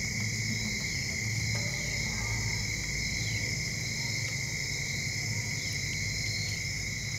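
Soft background music with held low notes over a steady, high-pitched chorus of insects.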